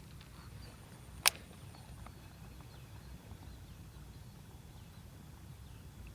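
Steady low outdoor rumble with one sharp click a little over a second in, and a few faint high chirps.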